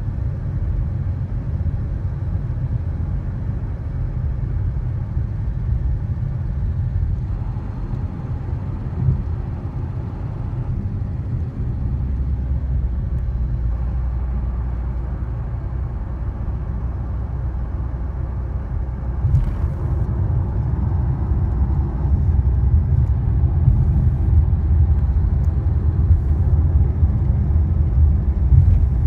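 2012 Chrysler 300 SRT8's 6.4-litre Hemi V8 running under load as the car drives, with a steady low rumble. A light ticking under acceleration comes from a worn lifter that has eaten into a camshaft lobe. A sharp click sounds about two-thirds of the way in and another near the end.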